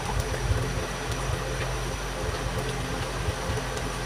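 Stew simmering in an aluminium wok over a gas burner, with a steady low rumble and a few light knocks of a wooden spatula stirring.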